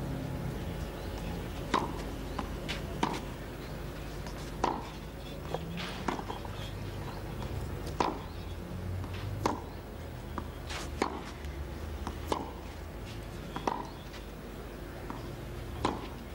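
Tennis rally: rackets strike the ball about eleven times, a sharp pock every second and a half or so, over steady low background noise.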